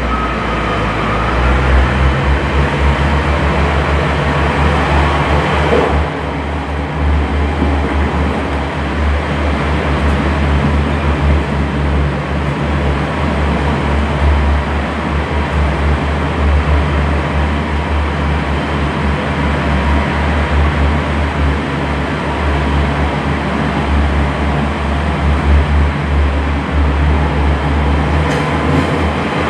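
Inside a Class 142 Pacer diesel railbus under way: the underfloor diesel engine drones steadily under the rumble of the running gear. The engine note steps up about a second in.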